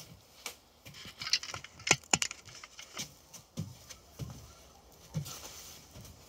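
Handling noise: a scatter of light clicks and a few soft low thumps as the phone is moved about by hand.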